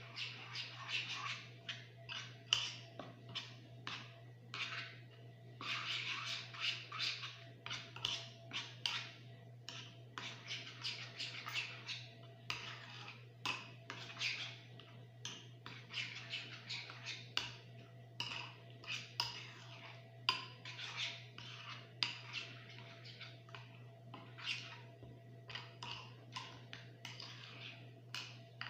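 Metal spoon stirring and scraping a thick yogurt-and-spice marinade around a ceramic dish, in quick repeated strokes, over a steady low hum.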